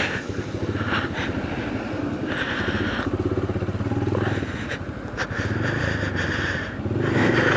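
Motorcycle engine running steadily as the bike is ridden along the road.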